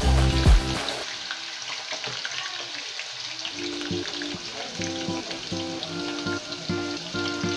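Potato slices deep-frying in hot cooking oil in an aluminium pot: a steady sizzle full of small crackles. Background music with a heavy beat plays over it, loudest in the first second and then fainter.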